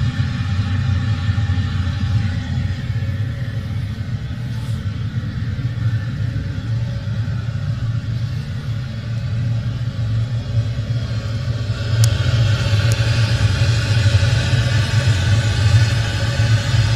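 Forced-draught burner of an industrial exhaust-fume afterburner firing steadily: a constant low rumble of flame and blower. About twelve seconds in, the flame's hiss grows louder, with two faint ticks.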